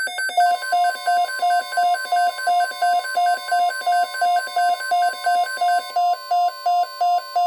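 A weather radio's alert alarm beeping rapidly, about three beeps a second, set off by an incoming tornado watch broadcast. Beneath it, from about half a second in, runs the steady single-pitch NOAA Weather Radio warning alarm tone.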